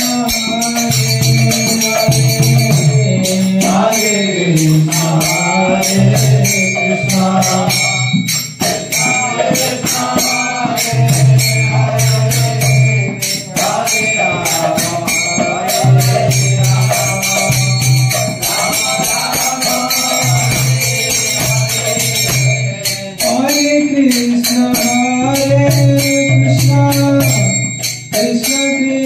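Devotional chanting: a man's voice sings a mantra through a microphone, in phrases with short breaks, over jingling percussion that keeps a steady, fast rhythm throughout.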